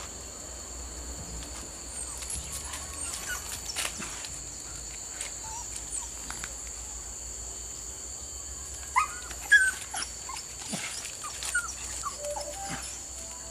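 Young dogs on leashes whimpering, with short high whines and yips, loudest in a cluster about nine to ten seconds in. A steady high hiss runs underneath.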